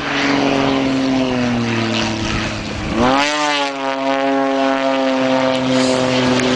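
Aerobatic biplane's piston engine and propeller during a display: the engine note falls for about three seconds, then rises sharply and holds steady.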